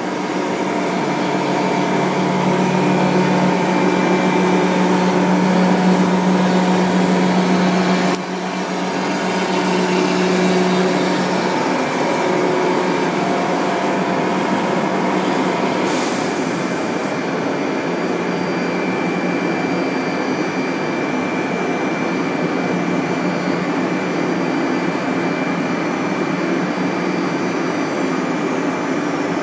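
AXYZ CNC router spindle routing a wooden sheet while its dust extraction draws off the chips: a steady hum and rushing air noise, with a brief dip about eight seconds in.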